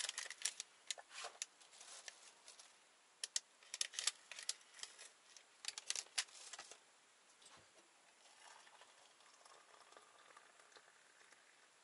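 Crinkling and tearing of a small wrapper handled in the hands, a tea-bag sachet being opened: dense sharp crackles for about seven seconds, then only faint handling noise.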